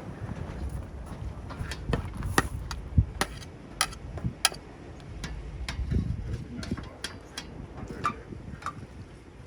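Irregular sharp clicks and knocks of a cooking pot and utensils as stew beef is put into the pot, over a low steady rumble.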